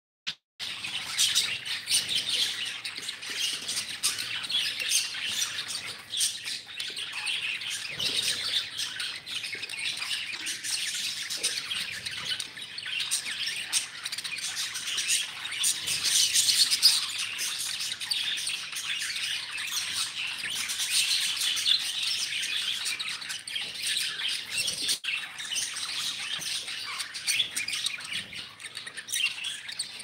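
A flock of budgerigars chattering: many birds chirping and warbling at once in a dense, continuous twitter.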